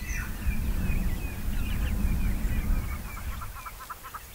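Male lion panting, a low rapid breathing that stops about three and a half seconds in. A bird calls over it in a string of short chirps, about four a second, ending in a quick run of calls.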